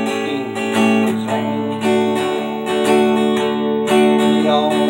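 Acoustic guitar strummed in a steady rhythm, chords ringing in a short instrumental passage of a country song.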